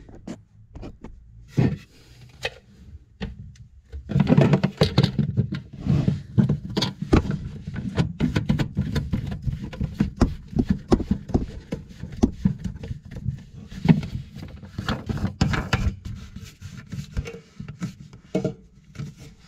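Plastic waste fittings and a bottle trap being handled and pushed together under a basin: a busy run of clicks, knocks and scraping of hard plastic parts. It is sparse for the first few seconds, steady from about four seconds in and thins out near the end.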